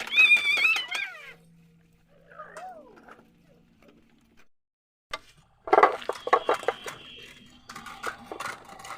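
A short high warbling call at the start, then after a quiet stretch a run of sharp metal clicks and clinks with brief ringing, as tools work on a motorcycle carburettor being removed.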